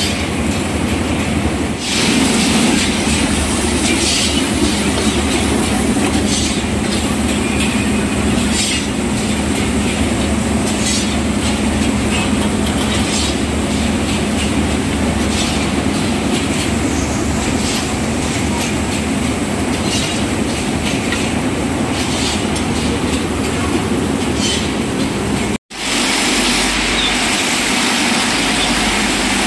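Match-making machinery running with a steady, dense mechanical clatter of many small clicks. The sound shifts about two seconds in, and again after a brief drop-out near the end, as different machines take over.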